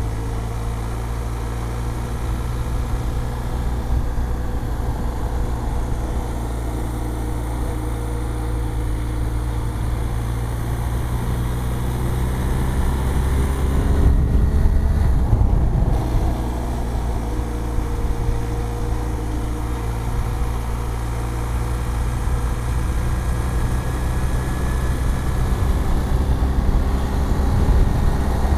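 BMW R1250 GS Adventure's boxer-twin engine running steadily at cruising speed, mixed with wind rush at the rider's helmet. The engine note glides up a little about halfway through, where the sound briefly gets louder.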